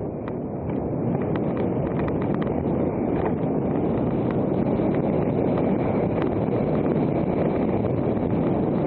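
Wind buffeting the microphone over the rumble of knobby mountain-bike tyres on a dirt singletrack descent. It grows louder about a second in as the bike picks up speed, with a few sharp clicks and rattles in the first few seconds.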